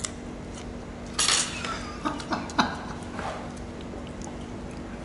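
Clinks and knocks of glasses and dishes on a table: a few sharp clicks in the middle, after a short noisy burst about a second in, over a steady low hum.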